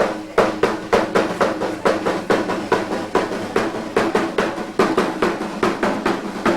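Drum music with a steady beat, about three strikes a second, over a held low tone.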